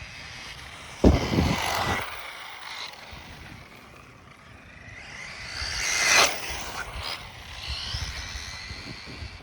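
Kyosho Raider electric RC buggy driving on pavement, its motor and gearbox whining and changing pitch with the throttle, swelling to its loudest as it passes close about six seconds in. A sudden loud burst of noise comes about a second in.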